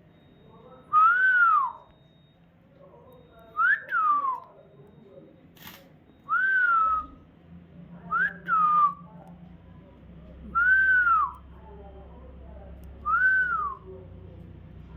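A series of clean whistled notes, each a short glide that rises and then falls, repeated about every two seconds, with two coming as quick double notes. A sharp click sounds about halfway through, and a low steady hum comes in after it.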